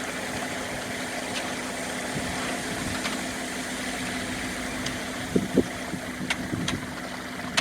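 An engine running steadily at an even idle, with a constant hum. A few short knocks and clicks sound in the last couple of seconds.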